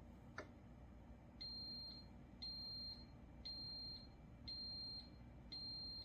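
Ninja DualBrew Pro coffee maker beeping five times, a high short beep about once a second, signalling that the carafe brew has finished. A single faint click comes just before the beeps.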